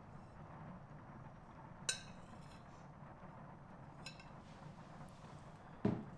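Metal forks clinking against ceramic dinner plates, two sharp ringing clinks a couple of seconds apart, then a duller knock near the end, over a low steady room hum.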